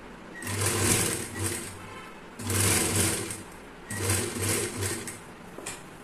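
Electric sewing machine stitching a sleeve seam in three short runs with brief stops between, and a very short burst near the end.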